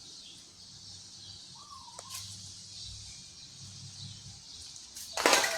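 Quiet outdoor background with a steady high hiss and a faint low hum, and one short warbling chirp about two seconds in. A sudden loud burst of sound comes near the end.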